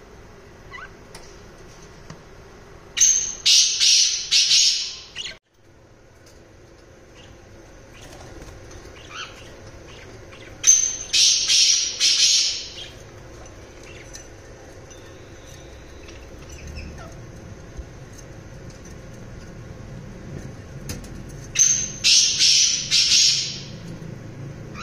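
Caged pet parrots (cockatiels and Fischer's lovebirds) giving three bouts of shrill, harsh squawking, each about two seconds of quick repeated calls, spaced roughly eight to ten seconds apart.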